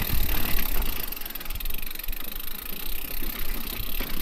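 Orbea Rise electric mountain bike rolling slowly over a rocky trail: tyre noise and a low rumble, with scattered clicks and rattles from the bike as it rides over the rock.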